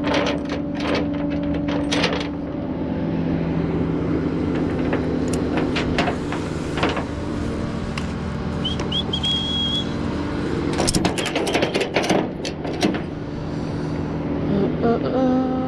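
Flatbed tow truck's engine idling steadily, with sharp metallic clanks and rattles near the start and again about eleven to thirteen seconds in.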